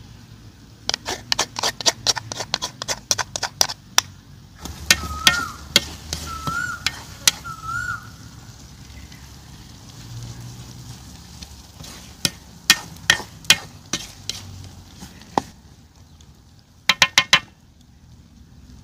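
A spatula stirring a thick stew in a large metal wok, knocking and scraping against the pan in four bursts of quick clacks, the last one short near the end.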